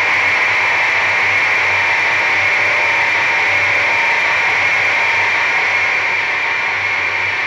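Harsh noise music: a loud, steady wall of static-like hiss concentrated in a high band, with a faint low throb underneath.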